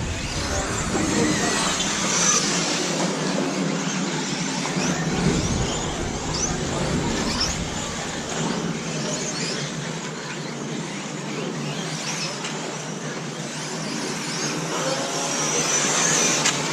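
Four-wheel-drive short course RC trucks racing on a dirt track: several motors whining up and down in pitch as they accelerate and brake, over a steady hiss of tyre and track noise.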